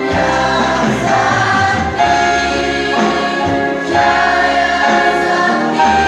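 A school choir of girls singing together in held notes.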